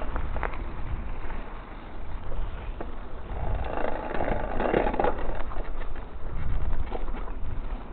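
Mountain bike rolling over a wet gravel and dirt track: tyre crunch and hiss with scattered rattles and knocks from the bike over the bumps, louder for a stretch around the middle, over a steady low rumble on the handlebar camera microphone.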